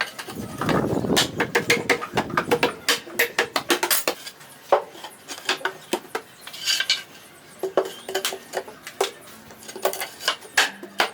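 Irregular sharp taps, clicks and clatter of hard objects being handled during woodworking, busiest in the first couple of seconds.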